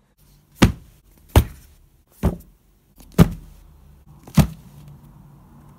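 Phone camera being handled, with five sharp knocks or bumps against the microphone at uneven intervals of about a second, and a low hum between them.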